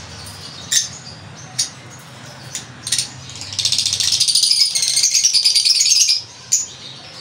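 Dry grass nesting material in a lovebird nest box rustling and crackling as a hand rummages through it. There are a few light clicks at first, then a denser crackling rustle for a couple of seconds past the middle.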